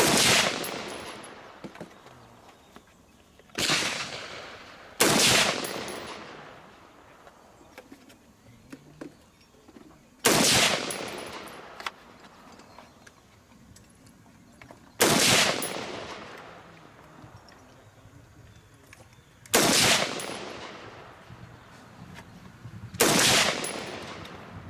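Seven single gunshots fired slowly, several seconds apart, each followed by a long echoing decay.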